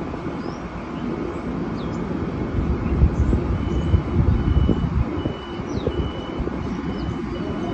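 Long Island Rail Road train's door-closing warning beeps: a high tone repeating about twice a second from about three and a half seconds in, signalling that the doors are about to shut. Under it, the low rumble of the train standing at the platform.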